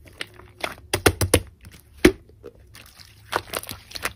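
Glossy pink slime being squeezed and pressed by hands, giving a run of sticky clicks and pops. A quick cluster comes about a second in, the loudest pop about two seconds in, and a few more near the end.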